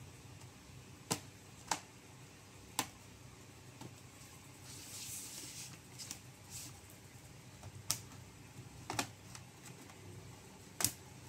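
Plastic clips of a Lenovo IdeaPad Slim 3 laptop's bottom cover snapping loose as it is pried open: about six sharp clicks spaced out irregularly, with a short scrape about halfway through.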